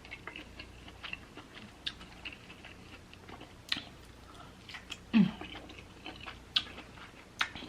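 A person chewing spicy king crab leg meat with wet mouth sounds and scattered sharp clicks. About five seconds in comes a short hummed 'mm' that falls in pitch.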